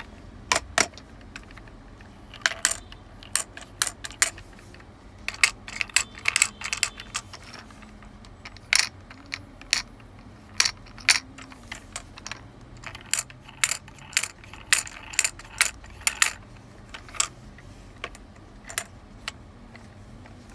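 Shape sorter toy: pieces clacking and clattering against the sorter, dozens of sharp, irregular knocks, some in quick clusters and a few with a short ring.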